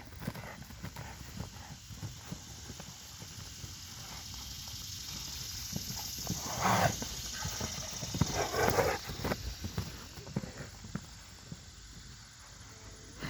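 Horses' hooves clip-clopping and thudding on the ground as they move about, with two louder bursts about seven and nine seconds in.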